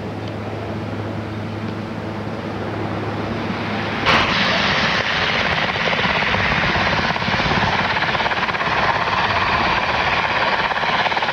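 A steady rushing noise with a low hum for about four seconds, then after a sudden jump a helicopter flying close overhead, its rotor beating loudly and evenly.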